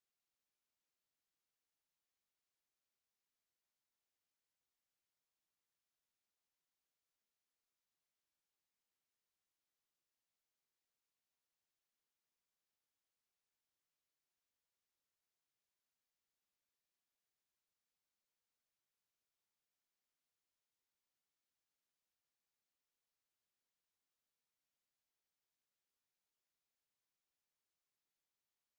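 A steady 11797 Hz sine-wave test tone: a single very high, unwavering pure pitch held at constant loudness.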